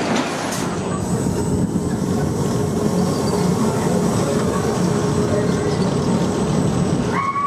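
Roller coaster train running along steel track: a steady rolling rumble with some wheel noise.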